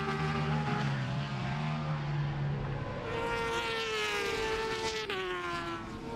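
Four-cylinder Honda superbike race engines at high revs passing by, each engine note dropping in pitch as it goes past. A fresh, higher note rises about halfway through and falls away again.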